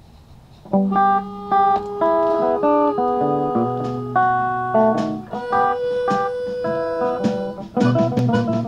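Instrumental intro of a slow love song, led by picked guitar notes that come in about a second in. Near the end the backing fills out with stronger bass notes.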